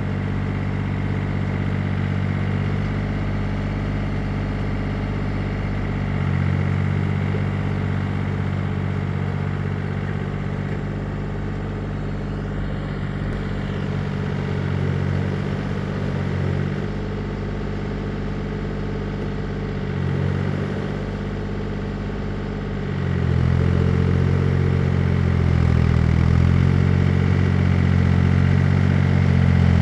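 Engine of a farm machine running steadily, its pitch stepping up and down several times and growing louder in the last quarter.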